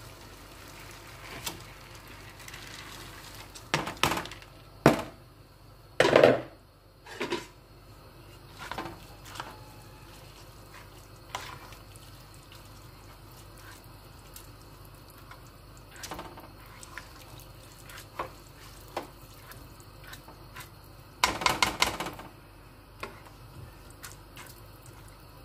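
Washed rice poured into a metal pot of stock, then stirred with a ladle that knocks and scrapes against the pot and sloshes the liquid. There are several sharp knocks about four to seven seconds in, and a quick run of clatters near the end.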